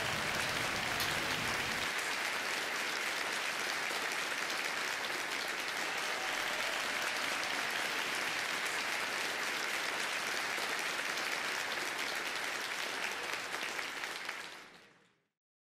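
Steady applause from a crowd, a dense even clapping that fades out about a second before the end.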